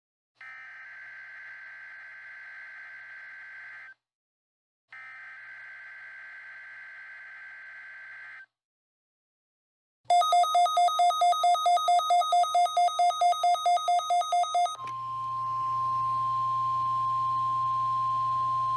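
NOAA Weather Radio test signal. Two long buzzing SAME digital header bursts a second apart, then a rapid electronic beeping about four times a second starting about ten seconds in, then the steady 1050 Hz weather radio warning alarm tone from about fifteen seconds in.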